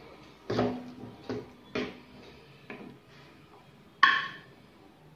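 Steel ladle knocking and scraping against a metal cooking pot as it stirs thick sundal gravy, a few soft knocks. About four seconds in comes a louder ringing clink as the ladle meets the rim or the serving bowl while a portion is dished out.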